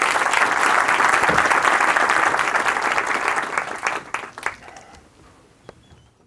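Audience applause: dense clapping that dies away after about four seconds, leaving a few scattered last claps.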